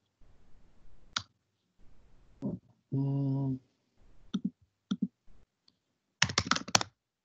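Scattered computer clicks, then near the end a quick run of keystrokes on a computer keyboard as an address is typed into a web browser. About three seconds in there is a short, steady low hum.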